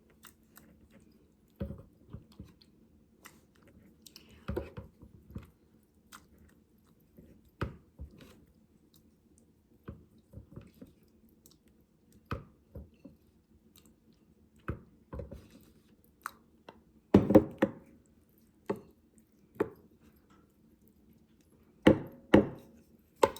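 Scattered light knocks and clinks of utensils against a pot and bowl while soup is served. The loudest cluster comes about two-thirds of the way through, with a faint steady hum underneath.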